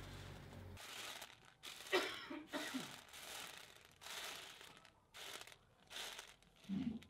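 Dry beans spread and shuffled by hand across a tray, in a run of short rustling, rattling passes about once a second.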